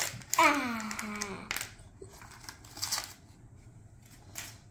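A young girl's voice makes one short wordless sound, falling in pitch, about half a second in. Then paper and plastic toy wrapping is handled and crinkled, with a few light clicks.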